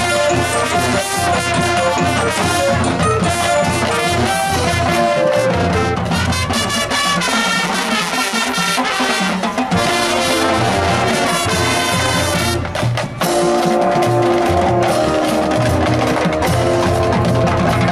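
Marching band playing, with brass leading the music. Just before 13 seconds in the sound breaks off for a moment, then the band comes back in on long held chords.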